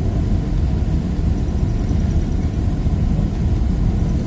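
Cabin noise of a Boeing 777-300ER taxiing after landing: a steady low rumble from its GE90-115B engines at idle and the rolling airframe.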